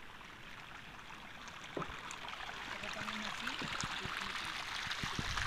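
Salt water trickling along a shallow brine channel between salt pans: a faint, steady trickle that grows slightly louder.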